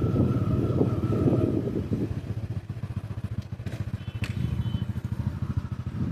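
Engine of construction machinery running with a rapid low pulse, louder and clattering for about the first two seconds, then easing to a quieter run with a few sharp clicks.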